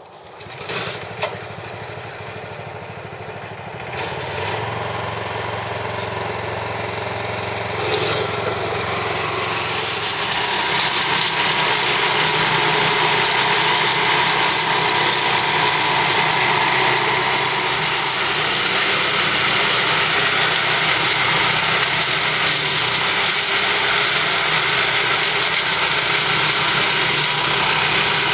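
Orec AHRC662 walk-behind flail mower running, with a couple of sharp knocks about a second in. The sound builds in steps over the first ten seconds, then holds loud and steady as the mower cuts through tall grass and weeds.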